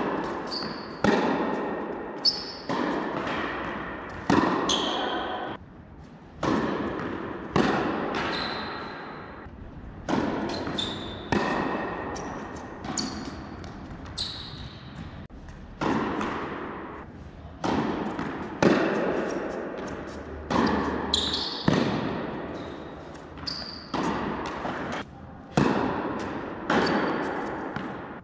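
Tennis rallies: racket strikes on the ball and the ball bouncing on the court, about one sharp hit a second, each ringing on in the echo of a large indoor hall.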